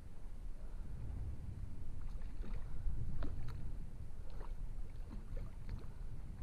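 Low, steady wind rumble on the microphone by the water's edge, with a handful of faint, sharp ticks scattered through it while a trout is played on a fly rod.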